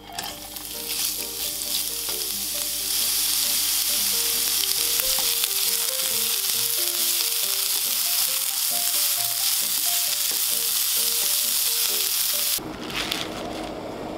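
Julienned carrot sizzling as it is stir-fried in hot oil in a nonstick pan. The sizzle builds over the first few seconds as the carrot goes in, then holds steady and loud. Near the end it gives way abruptly to a different, quieter sound, with soft background music throughout.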